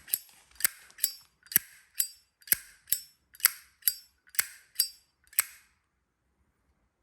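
Vintage 1963 Zippo lighter's hinged metal lid flipped open and snapped shut over and over: about a dozen sharp, ringing metallic clicks, about two a second, that stop a little before the end.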